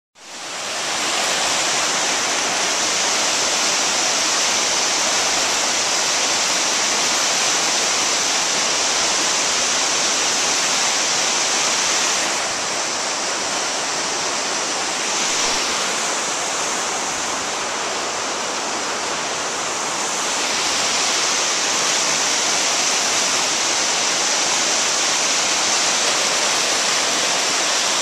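Fast-flowing creek rushing over rocks, a steady loud wash of water. It fades in at the start and drops a little from about twelve to twenty seconds in.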